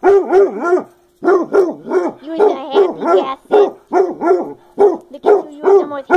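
Basset hound giving a rapid string of short yelping barks, about three a second, with a brief break about a second in: an excited greeting.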